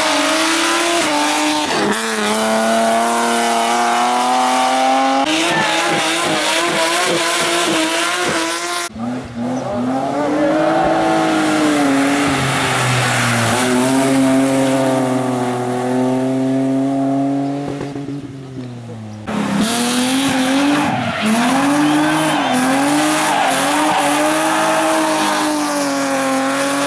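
Racing car engines at full throttle climbing a hillclimb course, revving up and dropping back at each gear change, with quick rises and falls in pitch near the end as they brake and blip down through the gears. The sound changes abruptly twice, as one car's pass gives way to another's.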